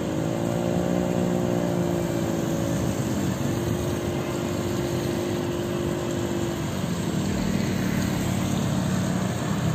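Vehicle engines running as slow traffic approaches along a flooded road: one engine note sinks slightly over the first few seconds and holds steady, then a lower engine hum takes over about seven seconds in, over a steady hiss.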